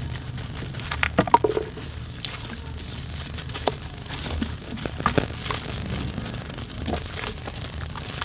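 Hands crushing wet lumps of dirt over a tub of muddy water: gritty crunching and crackling as the chunks break apart and the grit drops into the water, with the sharpest crackles about a second in and again about five seconds in.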